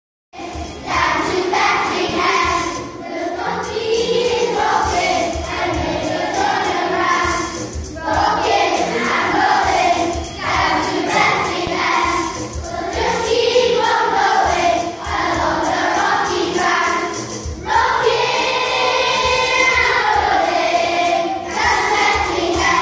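A children's choir singing a song in phrases with short breaks between them, over musical accompaniment.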